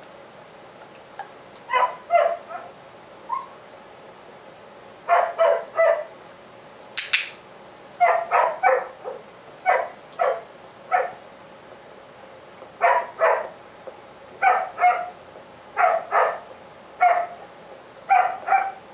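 A dog barking in short groups of two or three barks, a new group every second or two.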